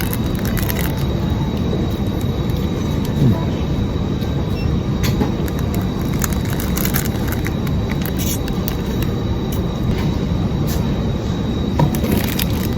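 Steady, loud background hubbub of a busy exhibition hall, with scattered clicks and rustles.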